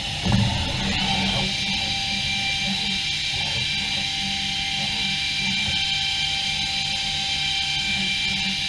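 Background music with guitar, over several steady high-pitched tones that settle to a constant pitch about a second in.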